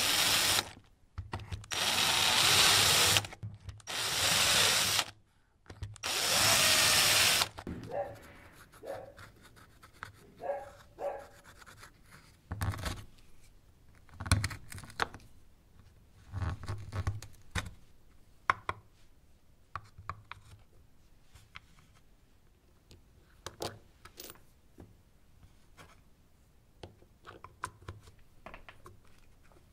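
Electric drill boring holes through a clear acrylic plate, in four loud bursts over the first several seconds. After that come quieter, intermittent scraping and tapping as a small chisel cuts a recess into plywood.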